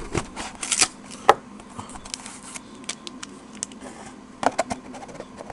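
Scattered clicks, taps and rustles of a trading-card box and its packaging being handled, with one sharper tap about a second in.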